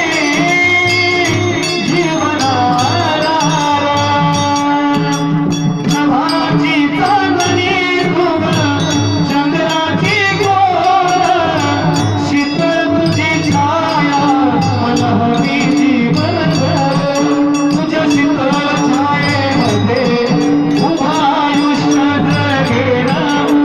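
Marathi devotional song: a voice sings a wavering, ornamented melody over a steady held drone, a regular drum beat and jingling small percussion.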